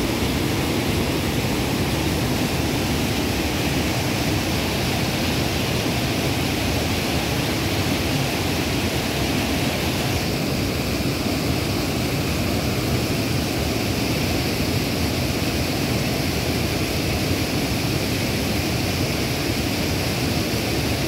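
Water pouring over a long low weir and rushing across a flooded causeway: a steady, even rush of noise that shifts slightly in tone about halfway through.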